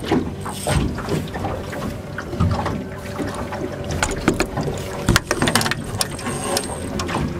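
Fishing reel being wound hard while a hooked fish pulls on the bent rod, its mechanism clicking. Several sharp knocks stand out about four to six seconds in.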